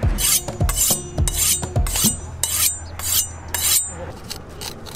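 A chef's knife drawn back and forth along a honing rod, a quick series of bright metallic scraping strokes about two a second that stops about four seconds in.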